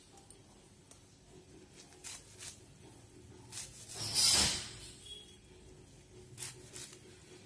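Sweet potato leaves being cut over a steel bowl: light crisp snips and soft rustling, with one louder rustle about four seconds in.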